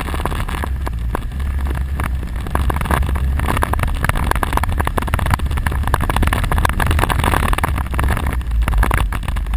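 Quad bike (ATV) engine running steadily, with wind noise on the microphone and frequent knocks and rattles; it gets a little louder a few seconds in.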